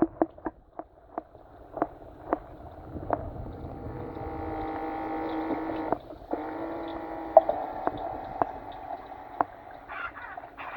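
Small electric motors of a toy radio-controlled submarine running, a steady hum with a stack of overtones, heard through the water. The hum cuts out briefly about six seconds in and comes back, with scattered sharp clicks and knocks throughout.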